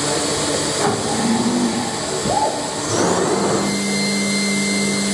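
Mazak Nexus HCN 5000 horizontal machining center running, with a steady machine whir and hiss as the spindle head traverses. About two to three seconds in, a whine rises in pitch and then settles into a steady hum.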